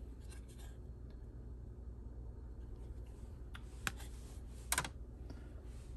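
Hard plastic PSA graded-card slabs clicking against one another as they are handled and shuffled. There are a few sharp clicks in the second half, the loudest a quick double click near the end, over a low steady hum.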